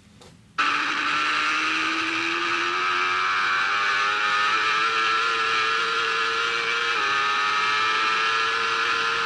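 BMW sports motorcycle's engine at full throttle on the onboard camera, cutting in suddenly just under a second in, its pitch climbing steadily as the bike accelerates. It drops once for an upshift about seven seconds in, then climbs again.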